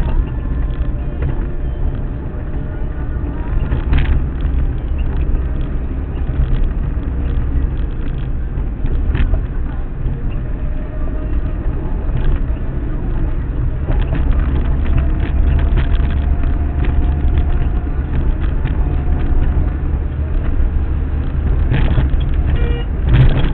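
Steady low rumble of a car's engine and tyres on the road, heard from inside the moving car, with occasional short knocks and rattles.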